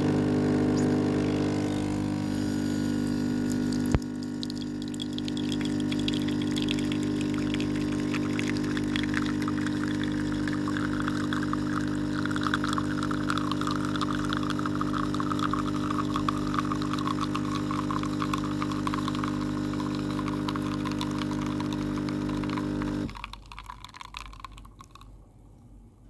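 De'Longhi Dedica EC685 espresso machine's vibratory pump buzzing steadily as it pulls a double shot, with a single click about four seconds in. From about nine seconds in, coffee hisses and sprays through, and near the end the pump cuts off suddenly, leaving a few faint crackles.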